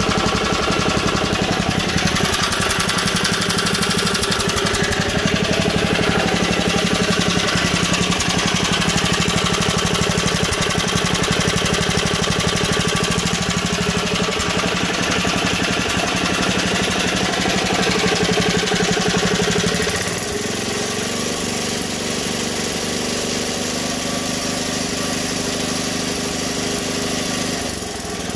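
Tecumseh HS-50 single-cylinder four-stroke mini-bike engine running steadily, its freshly cleaned carburetor being dialed in. It becomes a little quieter about twenty seconds in.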